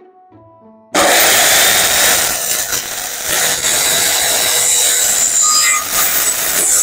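Corded circular saw ripping lengthwise through a painted wooden plank, starting suddenly about a second in and running loud and steady with a high whine. A faint tune plays before it starts.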